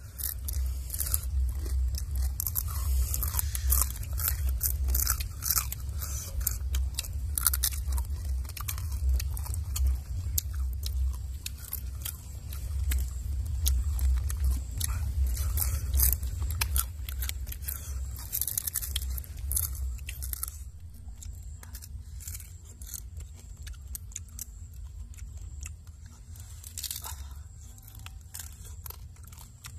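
Close crunching and chewing as cooked freshwater crabs are bitten, shells and all, with many sharp cracks, dense for the first two-thirds and sparser near the end. A steady low rumble runs underneath.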